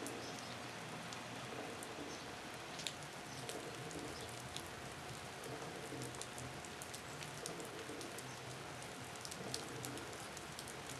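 Rain falling: an even hiss with scattered sharp drops striking close by.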